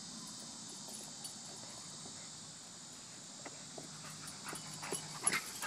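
Steady insect buzzing throughout. In the second half a dog gives a low growl, with a few light knocks and scuffles as the dogs tussle over a ball.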